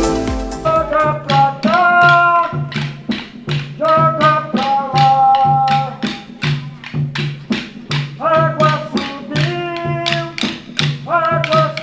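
Music: a melody of held notes that slide into pitch, over a steady clicking beat of about three to four clicks a second.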